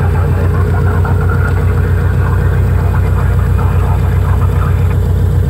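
Partenavia P-64 light aircraft's single piston engine and propeller running steadily at low power while taxiing, heard from inside the cockpit as a loud, even drone.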